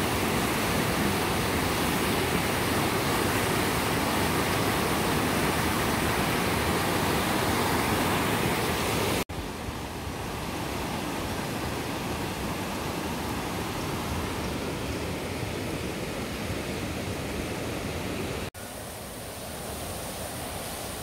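Steady rushing noise of flowing water. It is broken by two abrupt cuts, about 9 and 18 seconds in, and is a little quieter after each.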